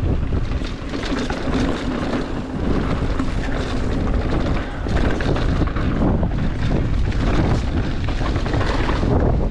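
Wind rushing over the camera microphone on a mountain bike moving fast, with frequent short rattles and knocks from the bike running over rock.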